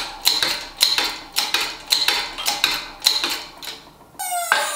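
Bottle-jack hydraulic shop press being pumped by hand, its handle and ram giving repeated ringing metal clanks about two to three a second as the upper ball joint is pressed into a Dana 44 steering knuckle. Near the end the clanking stops and a whine that falls steadily in pitch begins.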